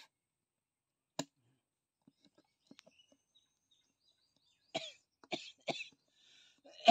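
Pliers gripping and cutting at the plastic cap of an engine-oil container: a sharp click about a second in, a few faint ticks, then three short crunching bursts near the end and a louder one at the very end.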